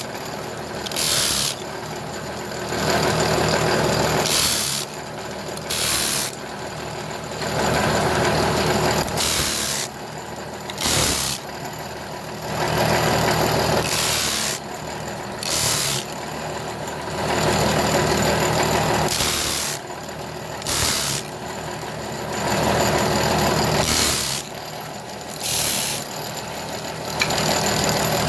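Electric sandpaper sanding machine running steadily, with a piece of wood pressed against the abrasive again and again: louder rasping passes of a second or two alternate with short sharp hissing bursts, in a cycle of about four seconds.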